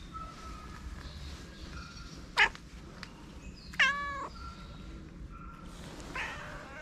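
A cat meowing twice. The first call, about two and a half seconds in, is short and sharp. The second, about a second later, is longer and louder: it drops steeply in pitch, then holds.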